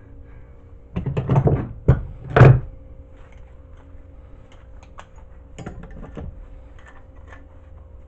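Hand tools and a small metal motor part handled on a wooden workbench: a cluster of knocks and clatter about a second in, the loudest just before the three-second mark, then light clicks and a shorter rattle around six seconds.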